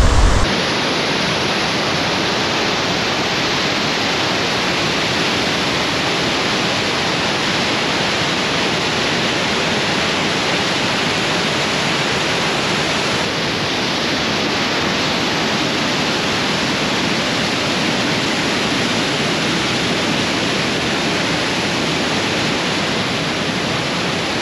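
Waterfall: a steady, even rush of falling water close by. A low rumble cuts off about half a second in.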